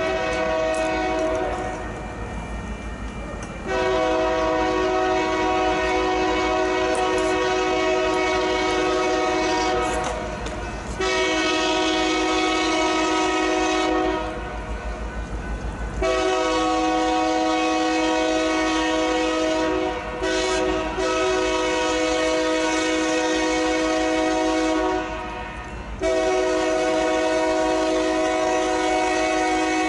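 Union Pacific SD70ACe locomotive No. 4141's multi-note air horn blowing a chord as the train approaches a grade crossing: one short blast, then a string of long blasts several seconds each with brief gaps between them, over a steady low rumble.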